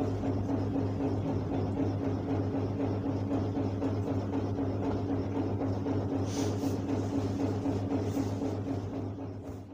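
A steady electrical hum that fades out near the end.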